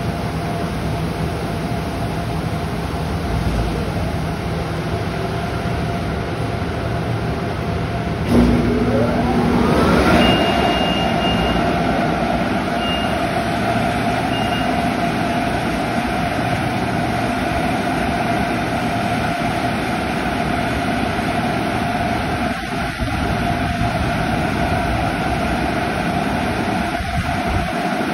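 PDQ LaserWash 4000 touchless car wash machinery running steadily. About eight seconds in, a large motor starts with a whine that rises in pitch over about two seconds and then runs on steadily: the exit dryer blowers spinning up as the car rolls out.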